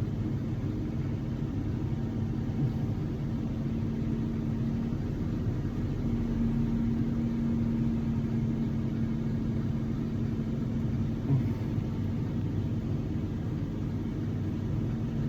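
Steady low rumble with a constant mechanical hum, broken by two faint short knocks.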